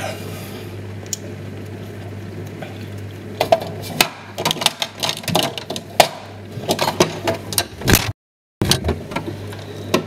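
Glass jars and bottles clinking and knocking on a refrigerator door shelf as items are handled, over the steady low hum of the fridge. The clatter comes in a quick run of knocks from about three and a half seconds in, and there is a brief dropout near the end.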